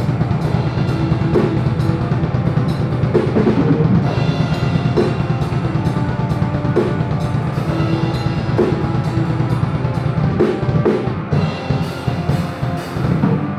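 Hardcore metal band playing: electric guitars and bass over a drum kit beating steadily with frequent cymbal hits.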